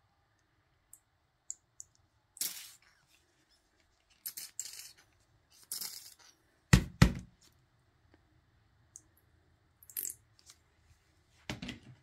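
Plastic squeeze bottle of dimensional paint being squeezed, spurting out paint with several short sputtering bursts. A single thump, the loudest sound, comes about seven seconds in.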